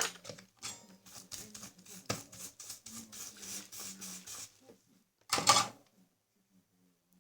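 Quick, irregular clicking and rattling of small parts and wires being handled on a workbench, over a faint steady hum. A short, louder rustle comes about five seconds in.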